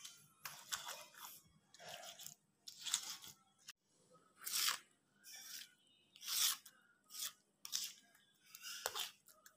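Stone pestle crushing and grinding fresh chilies, shallots and tomato on a stone mortar (cobek and ulekan) into chili paste, in a string of irregular wet grinding strokes about one or two a second. A spatula scrapes the paste together near the end.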